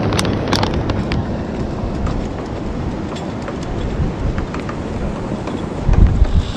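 Wind buffeting the microphone, a steady low rumble with a stronger gust about six seconds in. A few light clicks sound in the first second.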